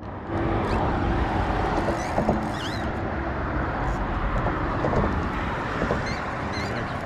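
Wind buffeting the camera's microphone: a steady rumbling rush, with a few faint high chirps in the background.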